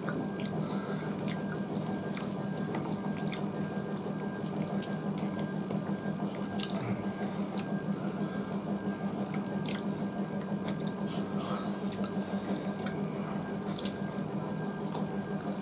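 Wet, squelchy sounds of hands mixing rice with curry on steel plates, and chewing, with occasional faint clicks, over a steady low hum.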